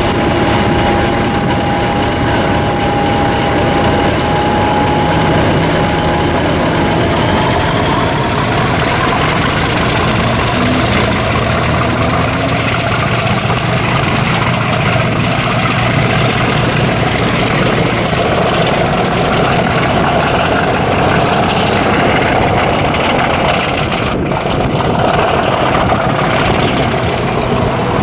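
A BR Class 50 diesel locomotive's English Electric 16-cylinder engine running loudly. A high whine rises steadily in pitch from about ten seconds in until near the end, as the engine works harder.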